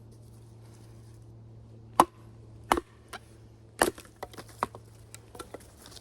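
Batoning: a baton striking the spine of a Work Tuff Gear Night Hunter knife to drive it through wood. Three hard knocks come about two, three and four seconds in, followed by a quick run of lighter knocks and clicks.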